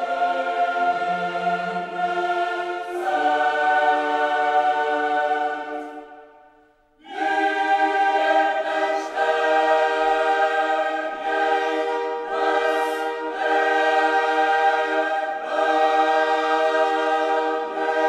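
Background music: a choir singing long held chords. It fades out about six seconds in and comes back a second later.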